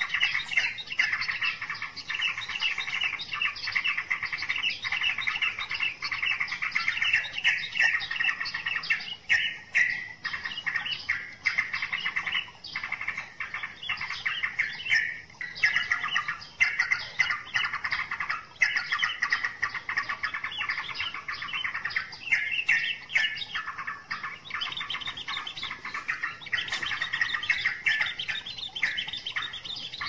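Small songbirds chirping continuously: a dense run of rapid, high repeated notes that goes on without a break.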